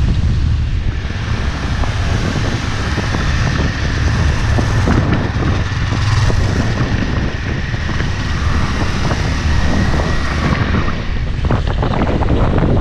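Wind buffeting the microphone of a GoPro on a moving motorcycle: a loud, steady low rumble over the sound of the bike and its tyres on the road. A thin steady high whine sits on top from about a second in until near the end.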